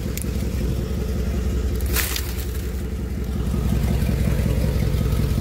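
Chevrolet Z71 pickup truck's engine idling with a steady low rumble, growing a little louder in the second half. A brief clatter about two seconds in.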